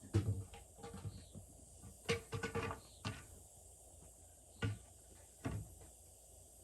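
Irregular wooden knocks and clunks, about six of them spread unevenly with a quick cluster near the middle, from the window and framing lumber being handled and set against a pallet wall.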